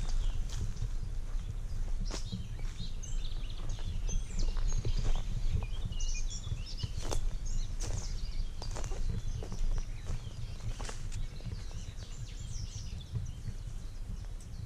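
Footsteps through dry leaves, twigs and undergrowth, irregular snaps and rustles, with small birds chirping and a steady low rumble underneath.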